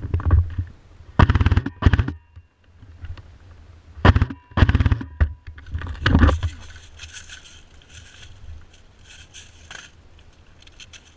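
Airsoft guns firing short automatic bursts of rapid clicks: about six bursts in the first six seconds, each under a second long, with fainter scattered clicks after.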